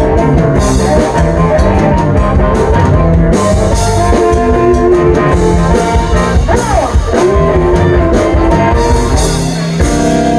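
Live blues band playing loudly: drum kit, bass and electric guitar under a held, bending lead line about six and a half seconds in.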